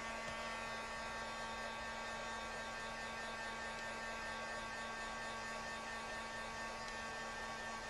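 Steady electrical hum over a hiss, with several steady high tones on top: background noise of the recording setup, with no other sound.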